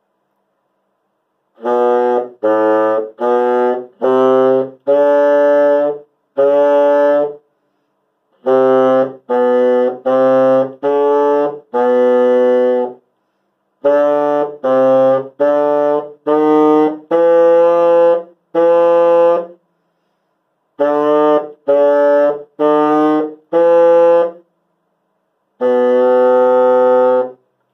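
Bassoon played in a series of separate held notes, grouped into phrases of four to six notes with short breaks between, ending on one long held note.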